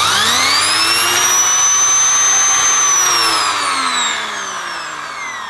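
Sebo Airbelt E1 Pet cylinder vacuum running with its small pet turbo brush fitted: a piercing whine climbs over the first two seconds as the motor and brush turbine spin up. It holds, then falls in pitch and fades from about three seconds in as they wind down.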